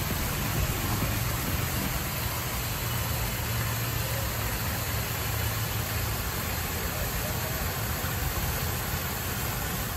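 Tiered fountain's water falling and splashing into its basin: a steady rushing noise, with a low hum underneath.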